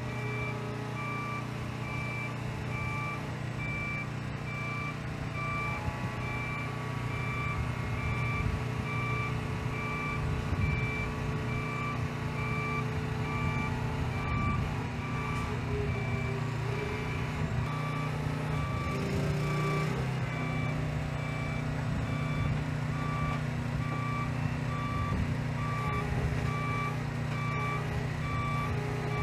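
Repeating backup alarm beeping steadily over the low, steady running of a heavy-haul truck's diesel engine as it moves a long trailer.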